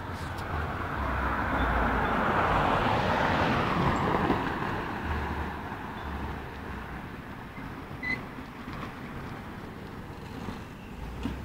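A vehicle passing by: a rush of tyre and engine noise that swells over the first few seconds and then slowly fades into steady background traffic noise, with a short high chirp later on.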